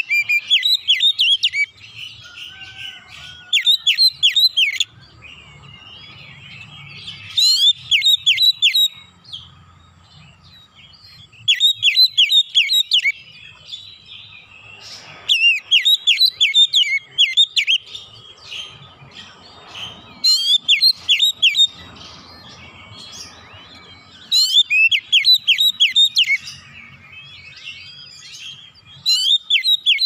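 Oriental magpie-robin singing in loud rapid-fire bursts of quick sweeping whistled notes, each burst about a second long. The bursts come about every three to four seconds, eight times, with softer warbling between them.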